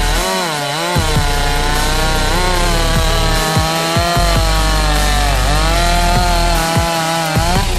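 An 80cc ported chainsaw cutting through a large log at full throttle, its engine pitch dipping as the chain loads up in the wood and then recovering. Background music with a heavy bass line plays underneath.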